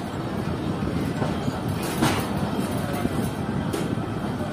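Freight train rolling slowly on the rails, heard from the guard van: a steady rumble with a few irregular knocks as the wheels pass rail joints.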